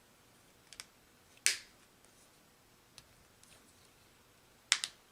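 Plastic clicks and snaps of a Honda key fob's case being fitted back together: a soft double click, a louder snap about a second and a half in, a faint tick, and a quick double click near the end.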